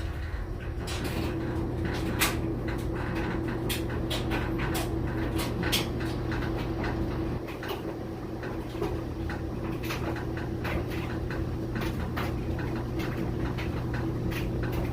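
Samsung clothes dryer running with a steady low hum and a steady higher tone, with irregular sharp clicks and knocks throughout. It is an abnormal noise that the owner calls awful and cannot identify.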